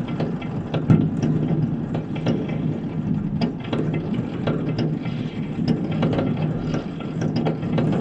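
Fireworks and firecrackers going off all over a city, heard from afar: a dense, irregular crackle of many overlapping pops and bangs over a continuous low rumble, with one sharper bang about a second in.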